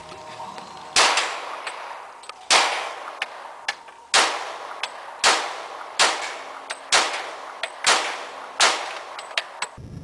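Glock 22 .40 S&W pistol fired eight times in slow succession, roughly a second apart, each shot a sharp report with a short ringing tail.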